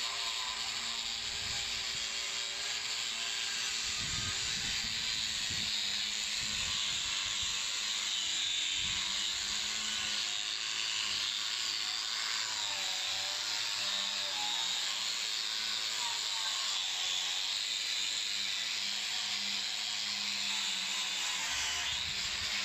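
Angle grinder with an abrasive wheel running steadily against a painted metal door, scouring off old paint before repainting; its pitch wavers now and then as the wheel is pressed on and moved.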